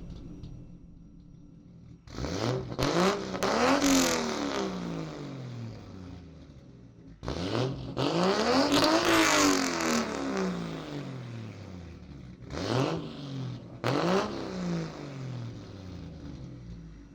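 Car engine revving up and falling back four times. The longest and loudest rev is about eight to ten seconds in, and two shorter ones come close together near the end.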